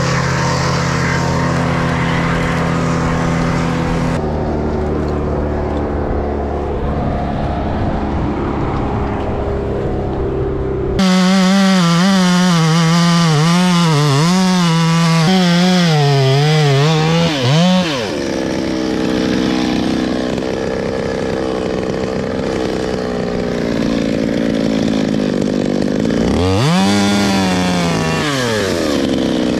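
Gas chainsaw engine running and cutting wood, its pitch wavering up and down as the chain bites and frees. Near the end it revs up once and drops back. The sound changes abruptly a few times.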